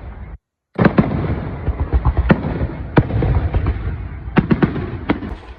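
Fireworks display going off: a steady rumble and crackle of shells with sharp bangs every second or so, several close together near the end. The sound cuts out completely for a moment just after the start.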